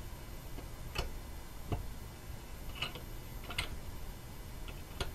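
Valve spring compressor being cranked down on a valve spring in a BMW 323i cylinder head: five sharp metal clicks, irregularly spaced about a second apart, as the handle is turned.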